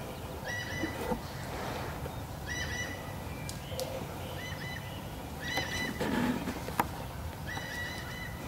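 Wild turkeys calling: a short call of about half a second, repeated five times roughly every two seconds, with a couple of sharp ticks between.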